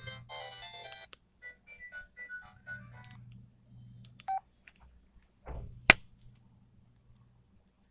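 LG TM520 mobile phone playing a ringtone melody through its small speaker, first dense, then thinning to single beeping notes, and stopping about three seconds in. It is followed by a short beep and scattered button clicks, with one sharp, loud click about six seconds in.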